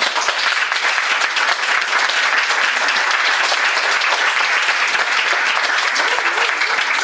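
Audience applauding: many hands clapping in a dense, steady patter that breaks out suddenly at the end of a story.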